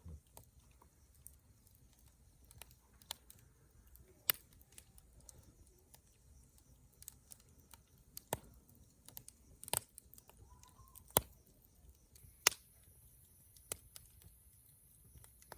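Wood fire crackling with sharp, irregular single pops, about ten over the stretch, the loudest around the middle.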